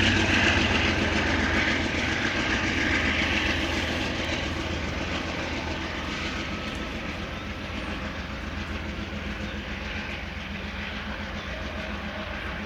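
A GE P40DC diesel-electric locomotive runs under power at the rear of a departing train, its engine a steady low hum mixed with wheel and rail noise. It slowly fades as the train moves away.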